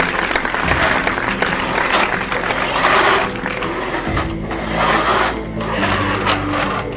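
Plastic toy truck's mechanism rattling and scraping in about five surges of a second or so, over background music.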